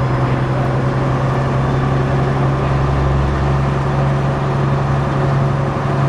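MCW Metrobus's Gardner six-cylinder diesel engine running steadily, a low even drone that holds the same pitch throughout.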